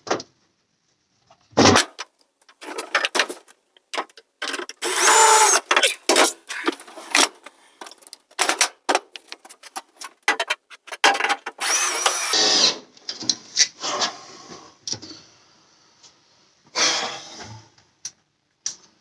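Power drill driving screws in two runs of about a second each, several seconds apart, with scattered knocks and clicks of handling between.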